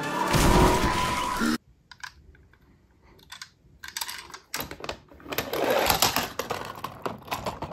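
Film soundtrack that cuts off abruptly about one and a half seconds in. Then clicks and knocks of a die-cast toy fire truck handled against a plastic track set, and a splash about six seconds in as the truck goes down a plastic ramp into a tub of water.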